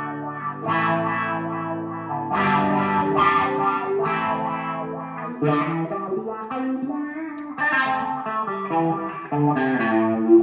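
Electric guitar, a Gibson Les Paul through a Marshall stack on the clean channel, playing chords through a Dunlop Cry Baby EVH edition wah pedal. The pedal is rocked back and forth, so each chord's treble opens up and closes down as the wah sweeps between its low and high ends.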